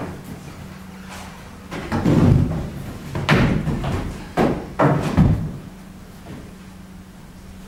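Wooden knocks and thumps, about five of them between two and five seconds in, as things are shifted about on a shelf, over a faint steady low hum.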